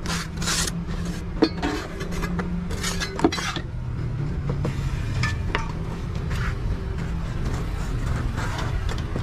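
Steel trowel scraping and smoothing wet concrete in a mould, in short bursts, with two sharp metallic clinks, over a steady low hum.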